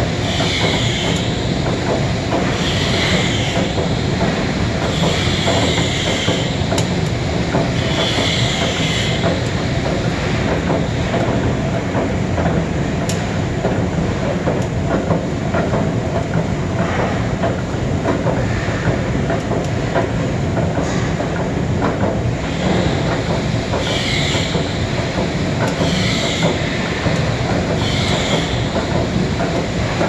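ERP 900 fridge compressor cutter running, spinning a sealed compressor shell against its cutter: a steady mechanical drone with a metal-on-metal squeal that comes round every two to three seconds, in the first ten seconds or so and again near the end.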